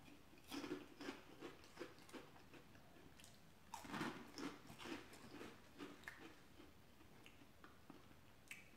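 A person chewing a mouthful of snack food, in two spells of irregular chews about half a second and four seconds in, with fainter chews between.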